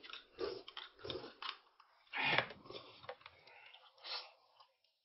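Close-up eating sounds: a person biting and chewing food noisily in irregular bursts, the loudest about two and a half seconds in.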